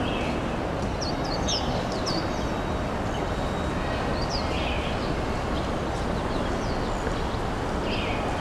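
Outdoor urban ambience: a steady rumble of background noise with small birds chirping, short high calls coming every second or so.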